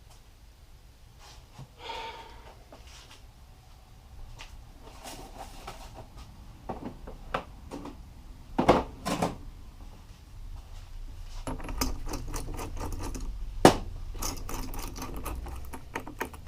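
Metal hand tools clinking and knocking: sockets being picked through and handled in search of the right size, with a few sharper clacks and a quick run of clicks near the end.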